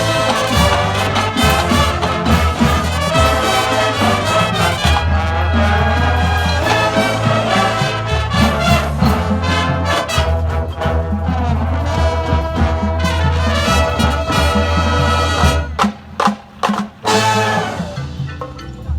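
Band music led by brass: trumpets and trombones over a steady low bass. About three-quarters of the way in, the band plays a run of short, loud accented hits with sudden breaks between them, then the music drops to a softer passage.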